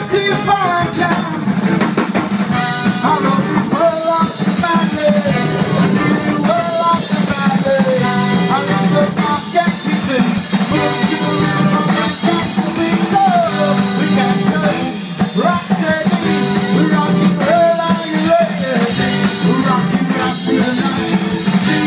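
Live band playing amplified, upbeat music: drum kit, electric guitar and bass, with a horn section of saxophone and trumpet playing held melodic lines over the beat.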